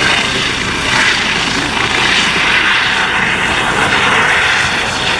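Toy police helicopter's electronic engine sound effect through its small speaker: a steady rushing aircraft-engine noise.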